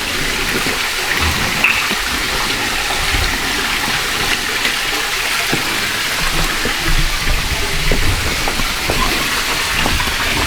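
Water rushing steadily down a rock channel, a loud even hiss, with a few faint low thumps.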